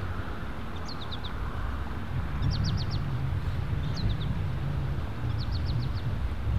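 A songbird repeating short phrases of quick, high, descending notes, about one phrase every second and a half, over a steady low rumble.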